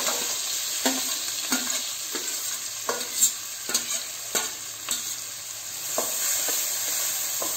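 Finely chopped onions sizzling as they hit hot melted butter in a stainless steel kadhai, with a spoon scraping and clinking on the steel as the onions are pushed in and stirred. The sizzle is a steady hiss under irregular clicks about every half second.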